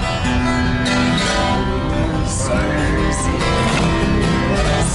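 Music: an acoustic guitar strumming a country song, with held notes.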